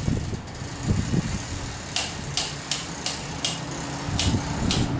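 Sharp clicks, starting about two seconds in at two or three a second and coming faster near the end, over a steady low hum of ceiling fans.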